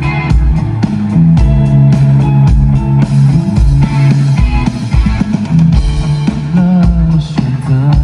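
Live pop-rock band playing a mostly instrumental passage of a song: guitar over bass and drums, heard loud from the crowd through a phone microphone. A singing voice comes in near the end.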